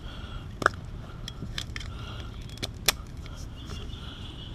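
Small plastic clicks and cable rattles as a USB charger plug is handled and pushed into a 12-volt cigarette-lighter socket connector, with a few sharp clicks spread through.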